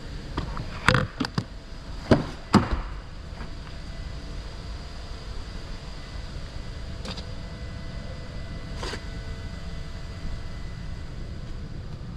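A handful of sharp clicks and knocks, loudest between about one and three seconds in, then two fainter ticks later, over a steady low rumble, as a car is handled.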